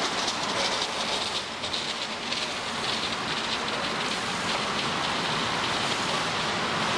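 Empty motor-driven steel car turntable rotating, giving a steady rolling rumble and rattle from its drive and support wheels.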